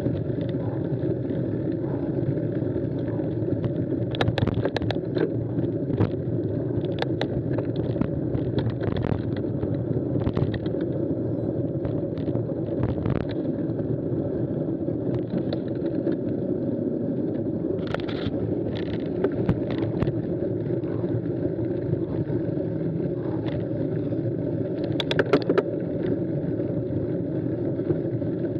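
Steady rumble of a mountain bike rolling over a dirt and gravel forest track, heard through a bike-mounted action camera, with scattered sharp rattles and clicks from the bike jolting over bumps.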